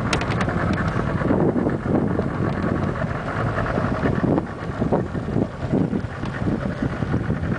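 Wind buffeting the microphone: a gusty low rumble that surges unevenly.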